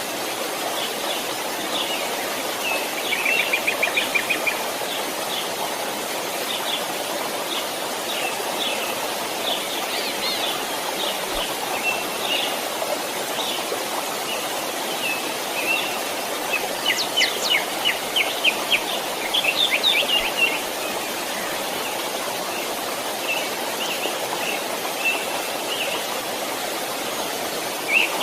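Steady rushing of a stream, with small birds chirping over it and breaking into quick trills about three seconds in and again midway through.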